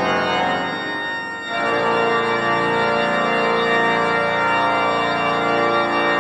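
Southwark Cathedral's pipe organ playing full, sustained chords, moving to a new chord about a second and a half in.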